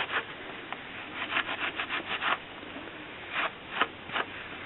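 Abrasive scrub sponge rubbed over a textured soldered bezel blackened with patina. A quick run of scratchy strokes comes in the middle, then three single strokes near the end. The sponge is scrubbing the black patina off the raised areas so they show silver.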